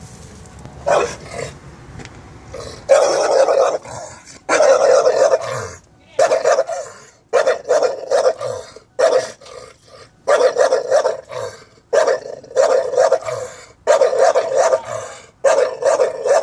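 Bulldog barking repeatedly as a guard dog at its gate: one short bark about a second in, then a steady run of barks about one a second.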